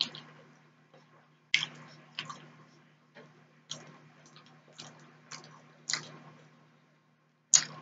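Mouth sounds of a person chewing food: irregular wet smacks and clicks of the lips and tongue, roughly one a second, the loudest near the end. A low steady machine hum runs underneath.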